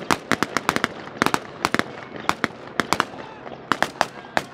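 Several Type 89 5.56 mm rifles firing blank rounds in irregular, overlapping shots, about four or five sharp cracks a second, some in quick pairs.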